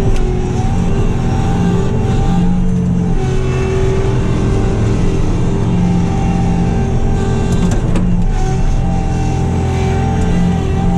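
Bobcat T66 compact track loader's diesel engine running steadily under hydraulic load, with a few sharp metallic clanks about seven to eight seconds in.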